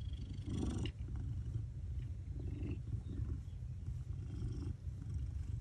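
Maine Coon mix cat purring: a big, steady low purr.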